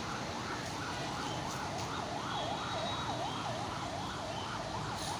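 A siren sounding in a fast yelp, its pitch sweeping up and down about two to three times a second without a break, over a steady hiss.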